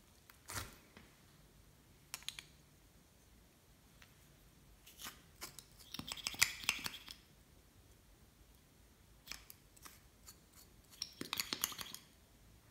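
Small plastic clicks and short scrapes from handling lip gloss tubes and pulling off their plastic caps, with a dense cluster about six seconds in and another near the end.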